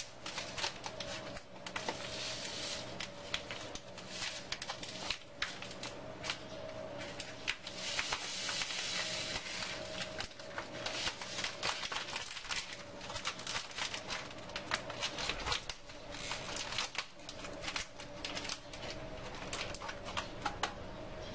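Small plastic piping bag of icing being squeezed and handled, with scattered soft crinkles and clicks over a steady low hum.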